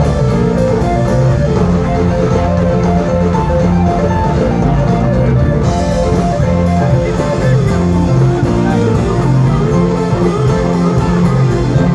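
Live rock band playing loudly: electric guitars over bass guitar and a drum kit, heard through the stage sound system from the audience.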